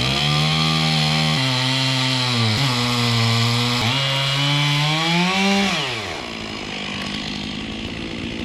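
Gasoline chainsaw at high revs cutting the top off a tree stump, its pitch sagging and recovering several times under load, then dropping to a quieter idle about six seconds in.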